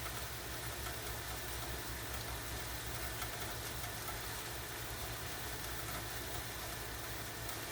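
Light rain falling, a steady even hiss, over a low steady rumble.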